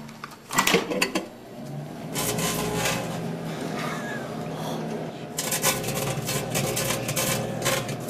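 Microwave oven door shut and its keypad pressed with a few clicks, then the oven running with a steady hum. About five seconds in, a rapid crackle of sharp ticks joins the hum as sparks start inside the oven around the can of pop.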